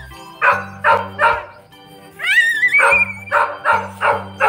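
Background music with a bass line and dog barks set in time with the beat: three quick barks near the start, a rising slide in pitch about two seconds in, then another run of barks.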